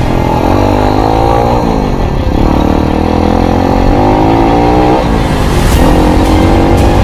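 Motocross bike engine pulling hard under acceleration, the revs climbing and then dropping at gear changes about two and five seconds in.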